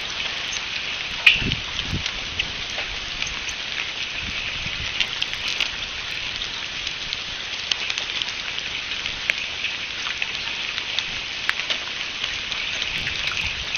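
Steady rain falling, with many sharp ticks of raindrops striking close by and a couple of low thumps in the first two seconds.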